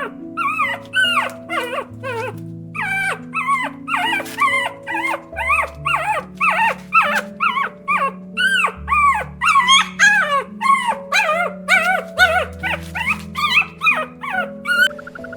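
Several puppies yelping and whimpering in quick, overlapping short cries, each rising and falling in pitch, over background music.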